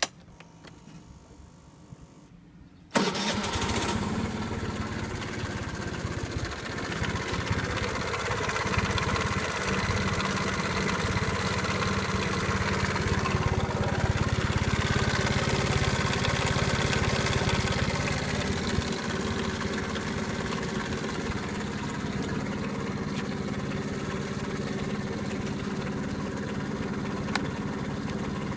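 Suzuki Let's 4 scooter's 49 cc four-stroke single-cylinder engine catching suddenly about three seconds in, then idling steadily. This is the engine whose abnormal noise the title names.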